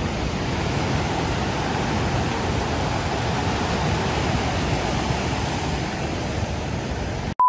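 Steady rush of water: a flooding river in spate and heavy rain. Right at the end it cuts off suddenly into a steady beep tone.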